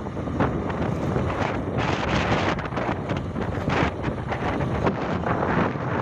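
Wind buffeting the microphone: a loud rushing noise that flutters in quick gusts.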